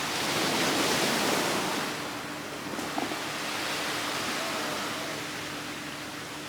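Sea waves washing ashore: a wave swells and breaks about half a second in, then settles into a steady wash of surf.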